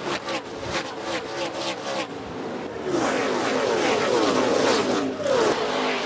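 A pack of ARCA Menards Series V8 stock cars passing close by at racing speed, one after another, each engine's note dropping in pitch as it goes past. The sound dips briefly about two seconds in, then a denser, louder stream of cars passes.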